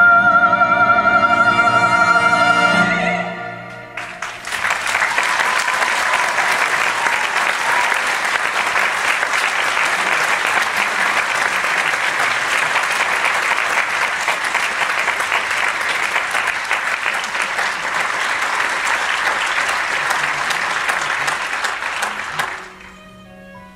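A soprano holds the final high note of a song with vibrato over the theatre orchestra for about three seconds. Then a theatre audience breaks into long, steady applause that lasts about eighteen seconds and dies away near the end as soft orchestral strings come back in.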